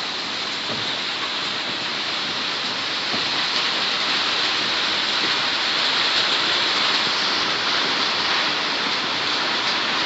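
Heavy rain falling steadily, a dense hiss that grows a little louder about three seconds in.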